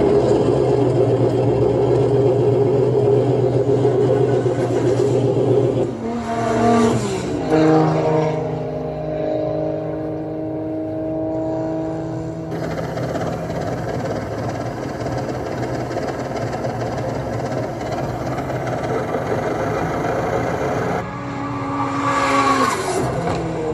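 Racing car engine running, with revs that swing in pitch about six to eight seconds in and again near the end. The sound changes character abruptly a couple of times, as dubbed-in engine recordings spliced together would.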